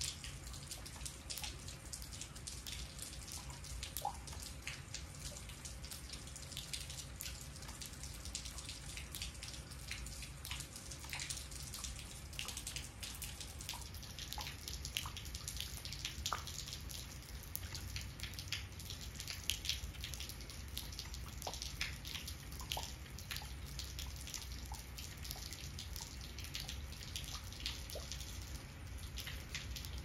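Steady light rain falling into a puddle and on wet concrete: a dense patter of small drop plinks, with a few louder single drops standing out.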